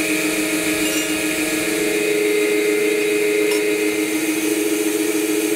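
Large motor-driven rolling mill running with a steady hum as a strip of sterling silver is rolled out into sheet.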